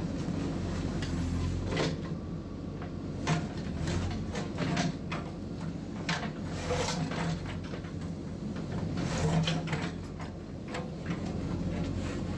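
JCB 3DX backhoe loader's diesel engine running steadily under work, with irregular clanks, knocks and scrapes from the machine's bucket and arm as it digs.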